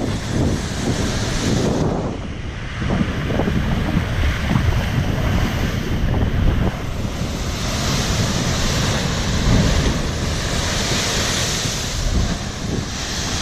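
Heavy surf breaking and washing against a rocky coast in continuous surges, with strong wind buffeting the microphone as a low rumble.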